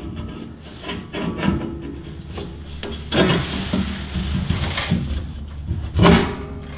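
Irregular metal scraping and rubbing as a rear leaf spring is worked into place under a pickup and pushed past the exhaust tailpipe, with a louder burst about six seconds in.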